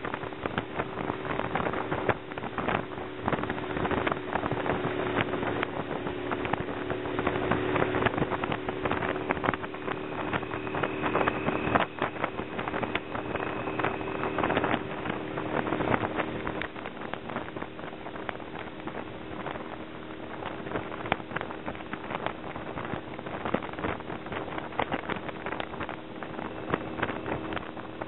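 Motorcycle engine running steadily at road speed, with wind buffeting the microphone.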